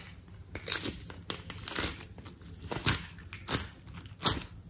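Slime being squeezed and pressed by hand, giving a run of crackling pops, with about five sharper ones.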